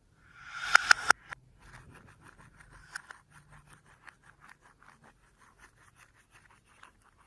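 Slime being squished and worked by hand: a loud squelch with a few sharp pops about a second in, then a run of small, irregular sticky clicks and crackles.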